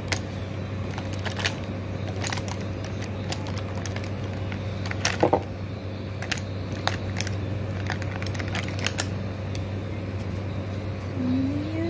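Scattered light clicks and taps from handling a makeup palette and brush, with one louder knock about five seconds in, over a steady low hum.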